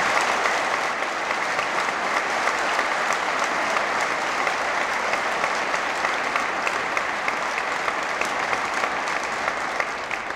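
Large audience applauding, a dense steady clapping that tails off near the end.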